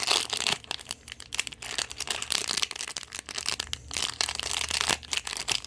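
Plastic wrapping on trading cards crinkling and crackling in irregular bursts as it is handled and torn open.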